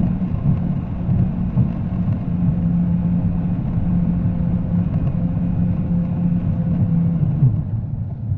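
Jet ski engine running under way, heard from inside its engine compartment: a steady low drone whose note drops about seven seconds in.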